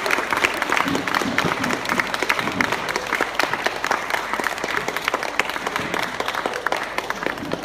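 A small crowd of seated guests applauding after a song, with some voices mixed in; the clapping fades away near the end.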